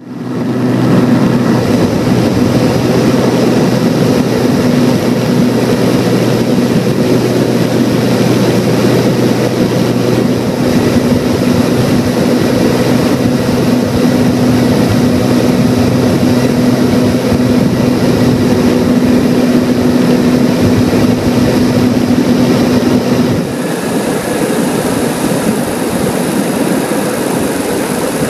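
Cabin noise of a Cessna TU206G in flight: its turbocharged piston engine and propeller make a loud, steady drone. About three-quarters of the way through, the sound changes abruptly and gets slightly quieter, with more hiss.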